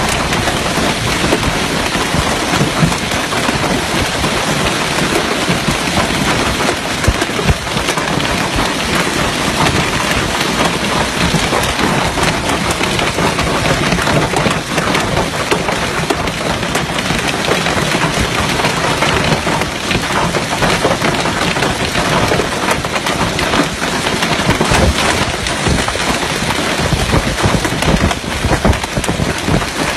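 Heavy hailstorm: hailstones pelting down on open ground in a dense, unbroken clatter.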